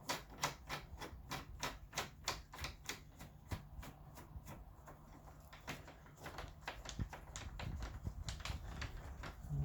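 Phillips screwdriver turning a door lock cylinder's fixing screw into the lock case: a run of small sharp clicks, about three or four a second, thinning out midway.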